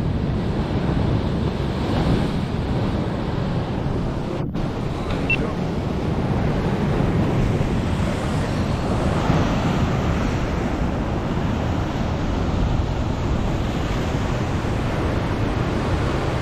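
Ocean surf breaking and washing over rocks in a steady rush, with wind buffeting the microphone. The sound drops out for an instant about four and a half seconds in.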